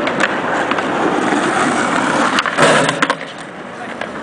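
Skateboard wheels rolling on pavement, with a loud clatter of the board about two and a half seconds in and a few sharp knocks just after. The rolling then drops off.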